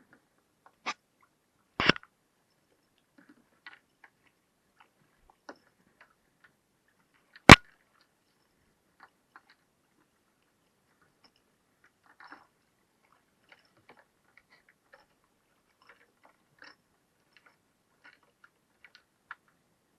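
Scattered sharp knocks and faint clicks, with no steady sound between them. The loudest knock comes about seven and a half seconds in and a smaller one about two seconds in.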